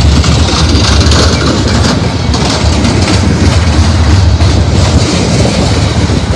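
Freight cars of a Union Pacific manifest train rolling past at close range: a loud, steady rumble of steel wheels on the rail with a rapid clatter of wheel clicks.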